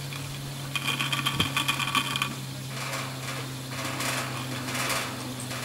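Haul rope of a 1959 Doppelmayr short-bar surface lift running over the tower's sheave rollers, with a steady low hum. About a second in, a fast rattling clatter lasts for a second or so, and lighter rattles come and go toward the end.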